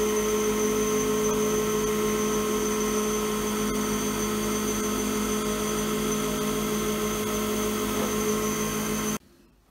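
Lathe running with a cast Alumilite resin pen blank spinning on its mandrel, a turning tool taking light clean-up passes that cut through cured CA glue fills in the resin: a steady motor hum and whine with cutting noise. It cuts off abruptly about nine seconds in.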